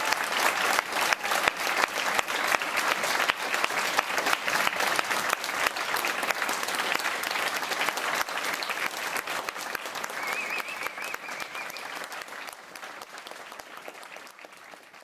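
Audience applauding with dense, steady clapping that fades away over the last few seconds.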